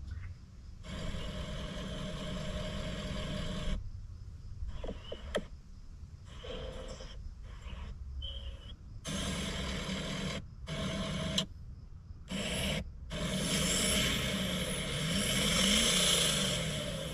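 Ford 6.7 Powerstroke V8 turbo-diesel idling after a cold start: a steady low rumble, with louder, hissier stretches that cut in and out abruptly several times.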